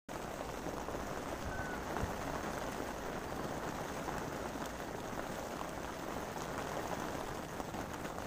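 Steady rain falling on open reservoir water, an even hiss that cuts in suddenly at the start.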